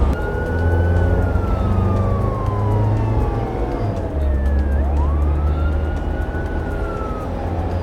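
A slow wailing siren over a low engine rumble, as in a cartoon vehicle sound effect. The siren falls in pitch for about four seconds, swoops back up, then starts falling again.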